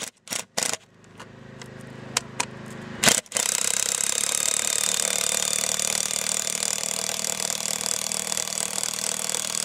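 Cordless impact driver driving a lag bolt through a roof-mount flashing block into a rafter: the motor spins the bolt in lightly at first, then about three seconds in the impact mechanism starts hammering in a steady rattle as the bolt meets resistance and tightens.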